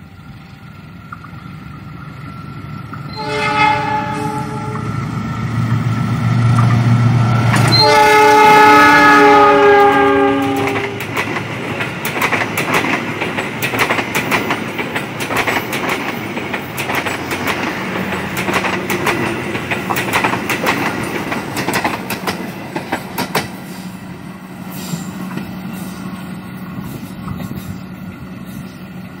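Passenger train passing behind a diesel locomotive. The locomotive sounds its horn twice, a shorter blast then a longer one, as its engine rumble swells to the loudest point. Then the carriage wheels clatter rapidly over the rail joints for about twelve seconds before fading to a low hum.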